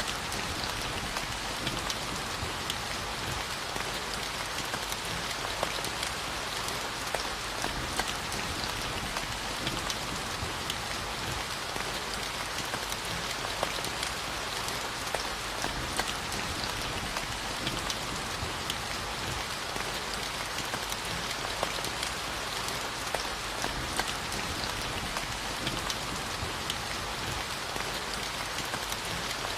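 Steady rainfall, an even hiss with many scattered drop ticks.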